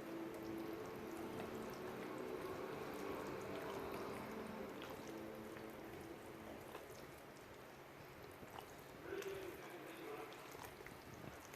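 Chicken stock pouring from a carton into a bowl of cornbread dressing mix, a steady liquid pour with small splashes and drips.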